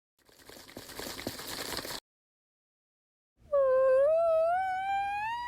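Story sound effects: a noisy hiss with scattered clicks for under two seconds, then a single long whine that slowly rises and wavers in pitch, the loudest sound, leading into the unicorn being asked what's wrong.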